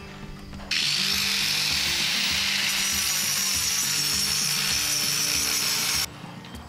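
Angle grinder spinning up and cutting steel wire mesh with a steady, loud hiss for about five seconds, stopping suddenly near the end.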